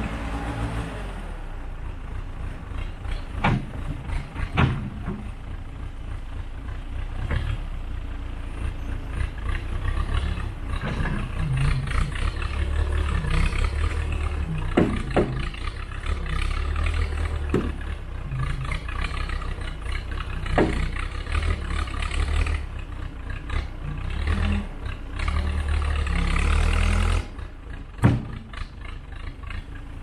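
Case 580C backhoe's engine running under load as the front loader bucket is raised and lowered. A few sharp knocks come through along the way, and the engine's rumble drops off near the end.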